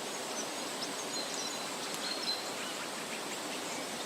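Steady outdoor background hiss with faint, high chirps and short whistled notes of small birds scattered through it.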